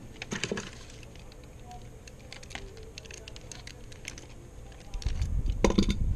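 Hands working flexible flashing tape onto a door sill pan, making scattered small clicks and crinkles. Near the end there is a louder rubbing, bumping burst as the tape is pressed and handled.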